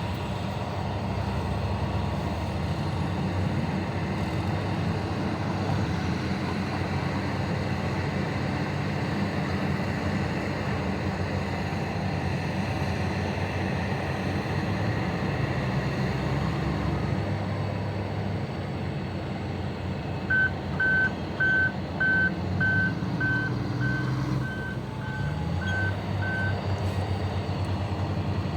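Heavy diesel mining machinery running steadily with a low rumble. About two-thirds of the way in, a reversing alarm sounds about a dozen times, roughly two beeps a second, for some six seconds.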